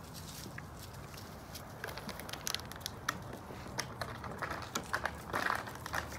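Scattered crackles and crunches of dry straw, leaves and dirt being trodden, with sharp little clicks; they grow busier about two seconds in and are thickest near the end.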